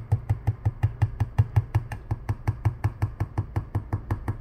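Rapid, even pulsing buzz, about eight low pulses a second, steady throughout.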